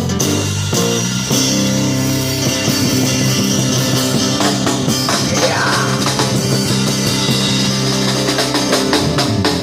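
Busker band playing amplified rock music on guitar and drum kit, loud and steady.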